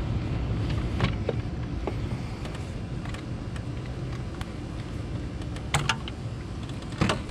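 Plastic coolant expansion tank of a BMW E90 335i being wiggled loose and pulled out of the engine bay: a handful of sharp plastic clicks and knocks, the loudest near the end, over a low steady rumble.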